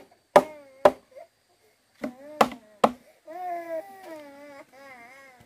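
Four sharp chopping strokes in two pairs about half a second apart. From about three seconds in, a baby cries and whimpers in wavering, high-pitched wails.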